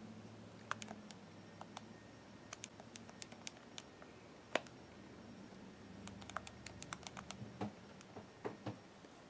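Keys of a Texas Instruments TI-85 calculator being pressed: scattered sharp clicks, some in quick runs, the loudest single click about halfway through. A faint low hum runs underneath.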